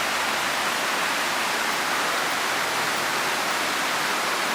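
Waterfall rushing steadily, a constant hiss of falling water with no breaks.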